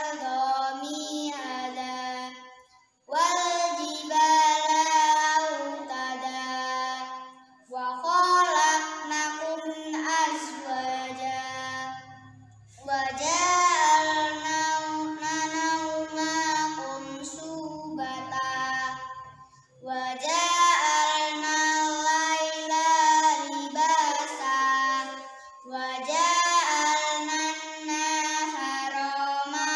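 A young girl's voice reciting the Quran in Arabic in melodic murottal style, in long drawn-out chanted phrases separated by short breath pauses.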